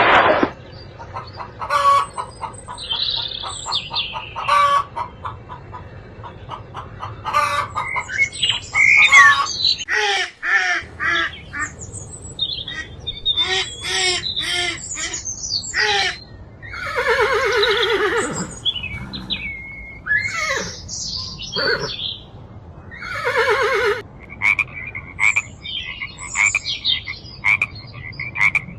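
A string of different animal calls, one after another, broken by a brief pause about ten seconds in. Near the end comes a quick run of short, repeated calls.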